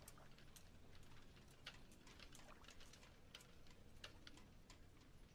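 Near silence: a faint low hum with scattered, irregular faint clicks.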